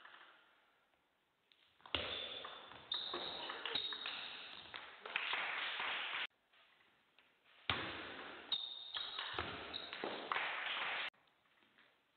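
Table tennis rally sounds: the celluloid-type ball clicking sharply against rackets and table, with high thin tones among the clicks. It comes in two stretches of about four seconds that start and stop abruptly, with near silence before and between.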